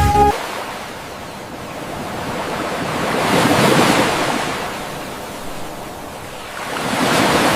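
Surf: a rushing sound of waves, swelling and fading twice, about four seconds apart.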